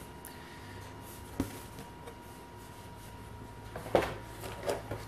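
Thick cardboard game tiles and a punchboard being handled and set down in a box: a light tap about a second and a half in, then a louder knock with a short rustle near the end.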